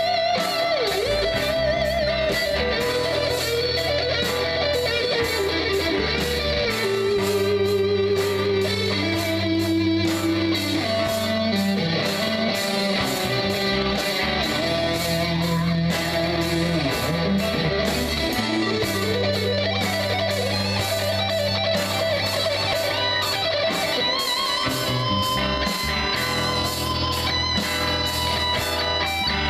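Live rock band playing: electric guitars over bass guitar and a steady drumbeat, with a lead guitar line of bent, gliding notes.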